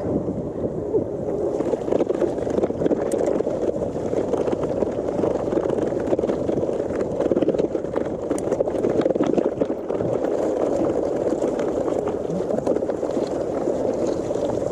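Steady rush of wind on the microphone and tyre noise from a gravel bike riding along. From about two seconds in, small ticks and crackles of gravel under the tyres run through it.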